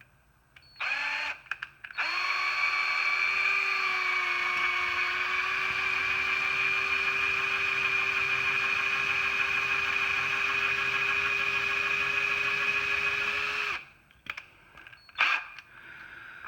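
Power drill with a 1/16-inch bit boring out the rivet of a Hot Wheels die-cast car. It starts briefly about a second in, then runs with a steady whine for about twelve seconds and cuts off sharply, followed by a couple of clicks.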